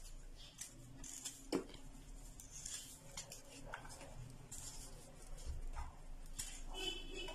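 Small paring knife cutting into a whole lemon, faint scrapes and cuts through the peel with a few light clicks.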